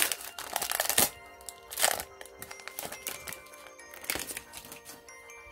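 Foil booster-pack wrapper being torn open and crinkled by hand, loudest in the first two seconds with a few softer crinkles later, over background music.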